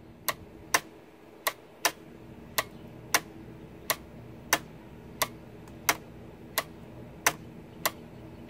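Regular sharp mechanical clicks from an early-1920s Marchant EA electromechanical calculator's mechanism, worked back and forth by hand, about three clicks every two seconds over a faint steady hum.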